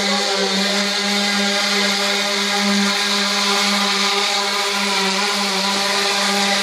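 Omni Hoverboard's electric multirotor propellers running steadily as it hovers with a rider aboard: a loud, even hum with a wide hiss over it.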